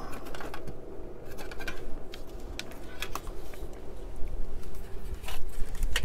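Scattered light clicks and rustles of hands handling a CD-ROM drive and its plastic power connectors and ribbon cables, over a low steady hum.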